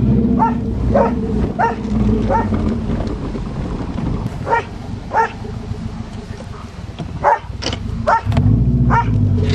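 A dog barking repeatedly, about nine short barks, over a Subaru Legacy's engine running. The engine eases off partway through and picks up again near the end.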